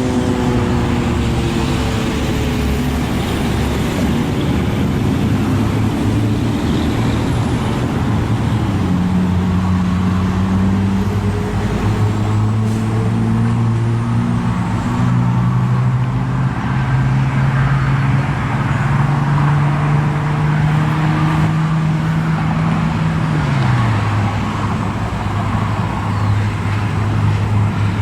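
Road traffic running and passing, with a steady low engine hum that shifts in pitch and drops about three-quarters of the way through. A fainter tone falls slowly in pitch over the first few seconds.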